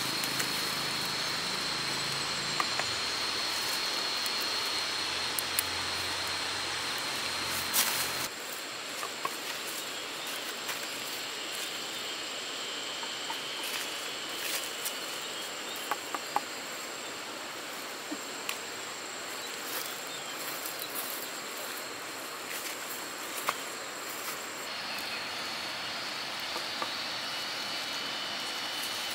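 Insects chirring steadily in a rural outdoor ambience, holding a high, even note that switches abruptly to a higher one about eight seconds in and back again near the end, with scattered light clicks.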